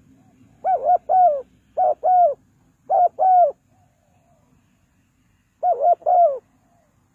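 Spotted dove cooing: four phrases of two or three short coos, each coo falling in pitch at its end, with a longer pause before the last phrase.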